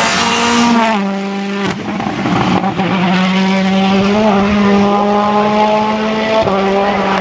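Rally car's 1.6-litre turbocharged four-cylinder engine running hard at high revs under full attack, its note held high with several brief breaks.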